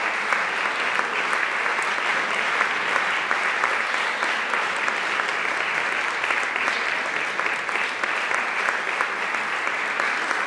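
Theatre audience applauding: dense, steady clapping from many hands that neither builds nor fades.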